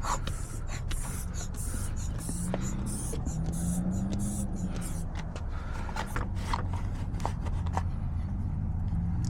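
A tool scraping and rubbing against a door's handle lock, with scattered light clicks, over a steady low hum. This is a lock being bypassed rather than picked, because it is a smart lock.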